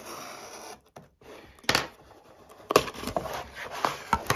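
A hobby knife slitting the packing tape along the edge of a cardboard box, a steady scratchy hiss. Then, from about a second and a half in, the box is pulled open: a run of sharp cracks and crackles as the cardboard and tape come apart.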